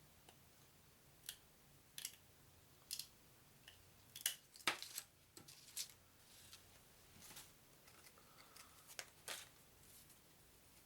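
Faint crinkling and rustling of a vintage wax-paper trading-card pack being opened and its cards handled: a series of short, scattered rustles and clicks, loudest around the middle.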